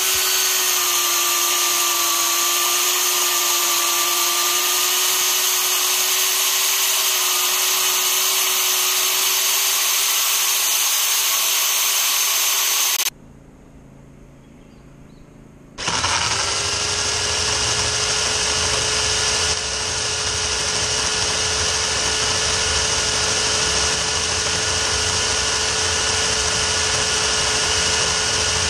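Electric chainsaw running with a steady high whine while cutting through a log. It stops about 13 seconds in. About three seconds later it starts up again, spinning up quickly, and runs steadily at a slightly higher pitch.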